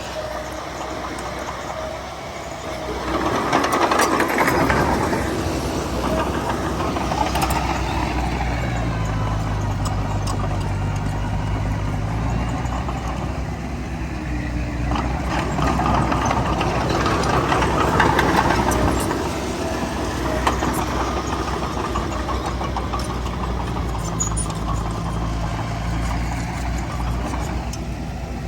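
Heavy diesel engine of earthmoving machinery running steadily, growing louder twice: about three seconds in and again around fifteen to nineteen seconds.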